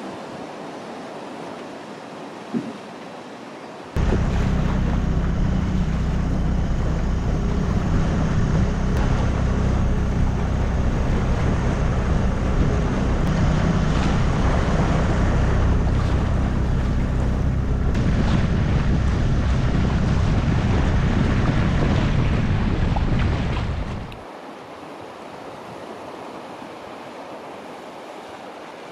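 Small boat's outboard motor running under way with water rushing past the hull, loud and steady for about twenty seconds, starting and stopping abruptly. Before and after it, a quieter steady wash of wind and water.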